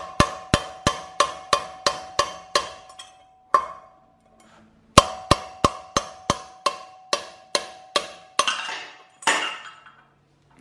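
Repeated blows on a steel socket extension bar held against a wheel bearing in a dirt bike's rear hub, driving the worn bearing out. The blows come steadily at about three a second in two runs with a pause of about a second and a half between them, and each one rings briefly with a metallic tone.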